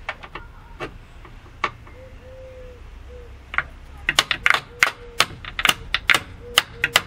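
Metal hand tool tapping and clicking against the gear shifter lever of a Suzuki RG500 gearbox. A few scattered sharp clicks come first, then a quick irregular run of taps over the last three seconds.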